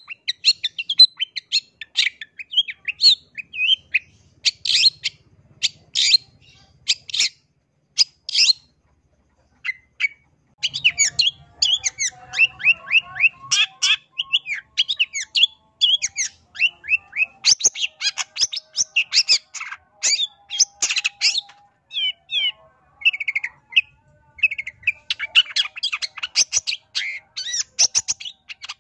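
Long-tailed shrike (pentet) singing: a fast, chattering run of short, sharp, high notes and squeaks, with a short pause about nine seconds in before it starts again.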